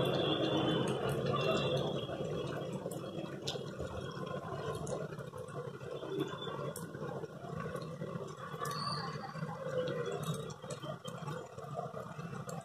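Rain falling, a steady patter with scattered faint drips.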